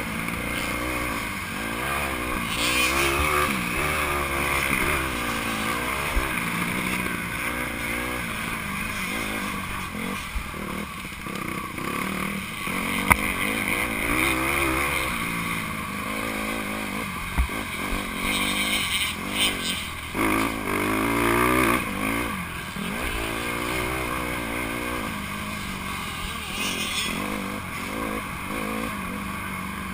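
Honda CRF150R's 150cc four-stroke single-cylinder engine running hard, revving up and dropping back again and again as the rider accelerates, shifts and backs off through the track's sections. A few sharp ticks cut through about halfway.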